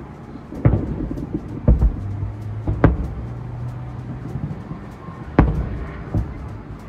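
Distant fireworks shells bursting: four deep booms at uneven intervals, each trailing off. A low steady hum runs for a couple of seconds in the middle.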